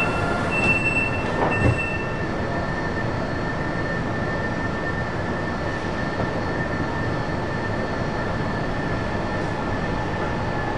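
Metro train standing at an underground station and starting to pull away, heard from the cab: steady running noise with a high steady whine. A few short tones and clicks come in the first two seconds.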